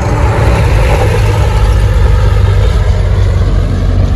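Motorcycle engine running steadily while riding, a loud low hum under a constant rush of noise.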